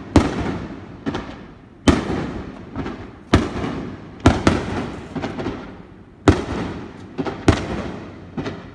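Aerial firework shells bursting: about eight sharp, loud bangs at irregular intervals of roughly a second, each trailing off in a long fading echo, with a pair in quick succession about halfway through.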